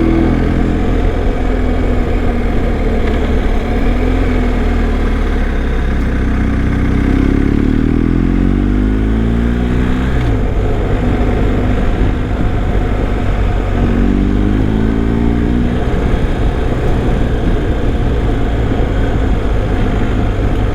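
BMW R1250 boxer-twin motorcycle engine running at road speed over steady wind and road noise. Its pitch rises and falls twice, about a third and two thirds of the way through.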